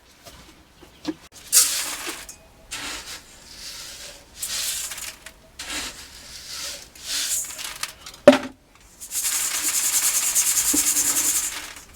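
Hand scraping and rubbing: several short separate strokes, a sharp knock about eight seconds in, then a fast, even, rhythmic scrubbing that keeps going.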